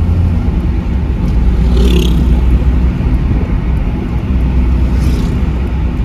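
Steady low rumble of a car on the move, heard from inside the cabin: engine and tyre noise on the road.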